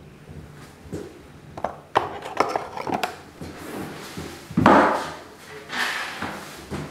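Scattered knocks and clunks of tools being handled in a small room, with a louder clatter about four and a half seconds in.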